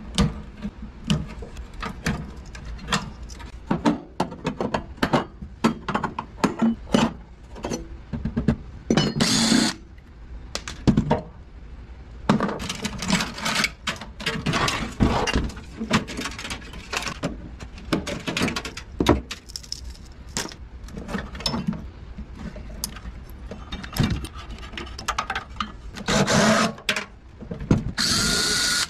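Hands dismantling a microwave oven's wiring and parts inside its sheet-metal chassis: many short clicks, knocks and rattles as connectors and components are pulled loose, with a brief noisy burst about a third of the way in. Near the end a DeWalt cordless drill starts running with a steady whine.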